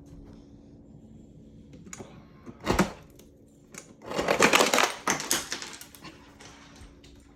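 Ice cubes clattering out of a refrigerator door ice dispenser: a short clatter nearly three seconds in, then a longer rattling clatter of about a second, over the fridge's low steady hum.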